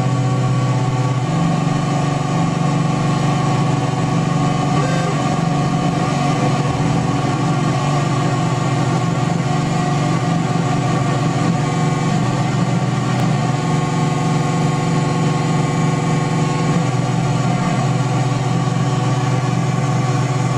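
DIY square-wave oscillator synth, built from a Squarewave Parade 'Parade' Parasite kit, giving a steady, buzzy electronic drone made of a strong low tone with many higher tones stacked above it. The tones shift a little as its knobs are turned, once just after the start and again a few seconds before the end.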